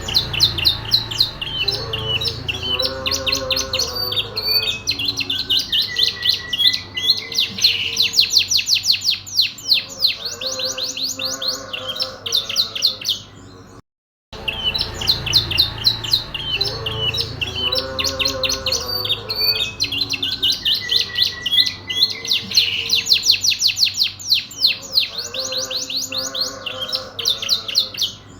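Domestic canary singing a long, fast song of rapid high trills and chirps, with lower warbling phrases mixed in. The same stretch of song plays twice, with a brief gap halfway through.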